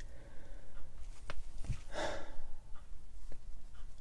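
A man sighing: one breathy exhale about halfway through, with a few faint clicks around it.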